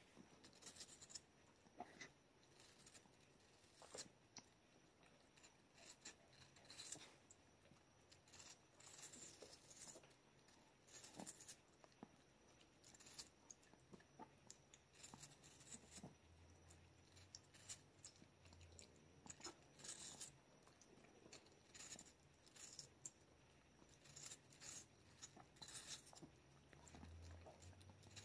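Dog chewing a piece of apple: faint, irregular wet crunches and clicks of teeth on the fruit.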